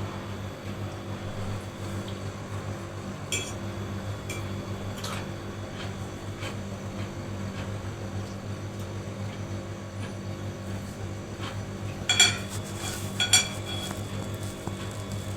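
A steady low hum with a few short metallic clinks, like utensils or glassware knocking together. The two loudest clinks come near the end.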